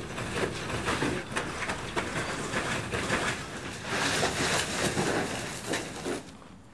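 Hands scraping and sifting through gravel and broken concrete rubble: a dense run of crunching and rattling that stops about six seconds in.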